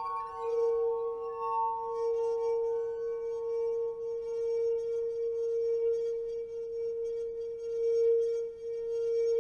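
Live experimental music played by hand on a tabletop instrument: a sustained ringing drone holding one steady pitch, with shimmering higher overtones that swell and fade.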